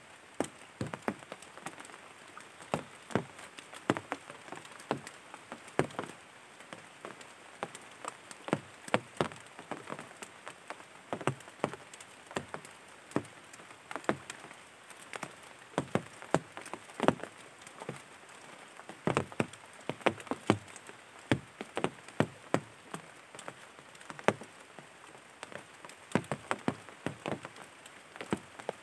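Raindrops striking a surface: irregular sharp ticks, often several a second, over a faint steady hiss.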